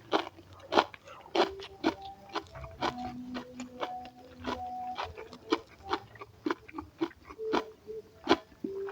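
Close-miked mukbang eating: a mouth chewing and crunching food in quick, irregular sharp crunches with wet mouth sounds.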